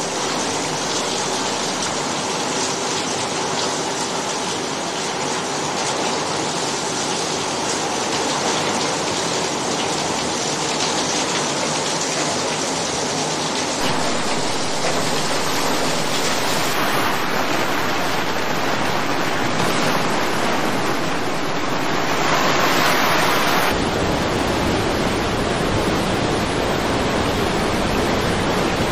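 Rushing floodwater: a steady, dense rush of water noise that changes character abruptly about fourteen and again about twenty-four seconds in.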